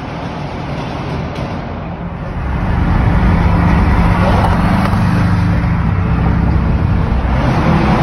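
BMW E46 M3's S54 straight-six exhaust droning steadily as the car follows close behind, over road and traffic noise heard from inside a vehicle; the drone grows louder about two and a half seconds in.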